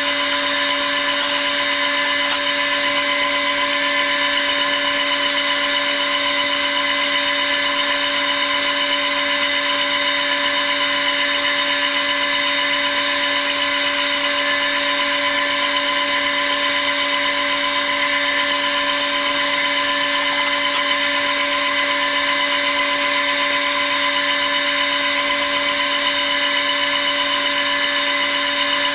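Metal lathe running at a steady speed while its tool cuts a grade 5 titanium bar: a constant whine made of several fixed pitches that does not change.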